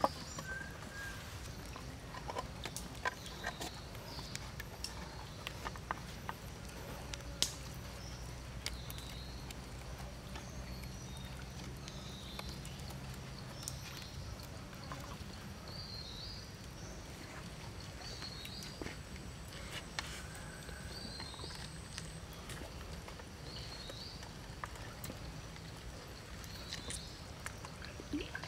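Forest ambience: a bird gives a short chirping call over and over, about every one to two seconds through the second half, over a low steady rumble. Faint scattered clicks and taps come from a raw chicken being handled on a wooden stick skewer.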